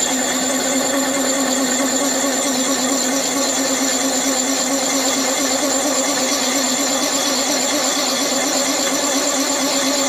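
Milling machine running steadily at a constant pitch as its cutter bores a hole through a thick brass plate.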